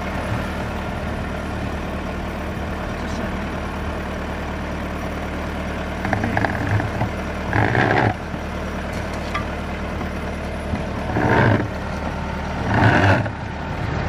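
Tractor engine running steadily under load while it pulls a drain-tile plow through sandy soil, with a few louder swells about halfway through and again near the end.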